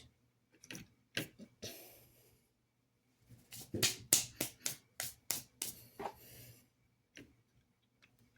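Scattered sharp clicks and taps with brief rubbing as small plastic model locomotive parts are handled, a quick run of them in the middle.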